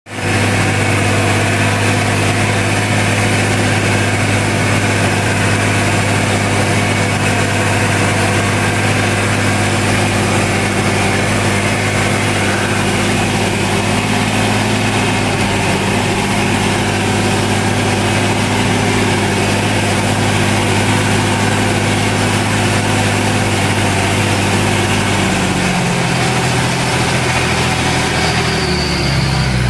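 Fiatagri Winner F130 DT tractor's diesel engine running steadily as the tractor drives across a field, heard from inside the cab with the front window open. The engine note drops a little near the end.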